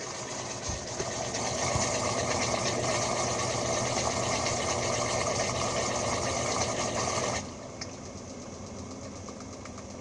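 Roper washing machine running: a steady motor hum under a loud mechanical rushing noise, which drops off suddenly about seven seconds in to a quieter steady hum.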